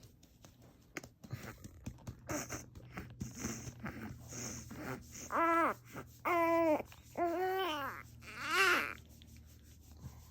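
Newborn baby fussing: four short whiny cries in quick succession in the second half, after a few seconds of faint rustling and light taps.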